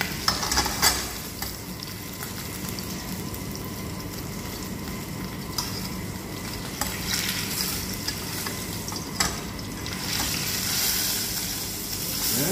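Chicken pieces frying in oil in a stainless steel pan, a steady sizzle as the skin browns, with a few clicks of a utensil against the pan in the first second and again later. The sizzle grows a little louder near the end.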